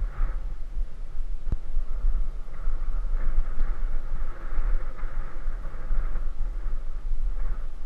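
Wind buffeting the microphone of a camera moving along a paved road, with steady road rumble and no engine note. A single sharp click about a second and a half in.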